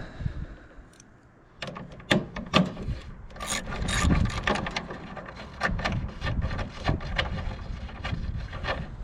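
Irregular knocks, clicks and scraping from hands-on electrical work, with tools and stiff cable being handled and rubbed against fittings. It is quieter about a second in, then busier for the rest.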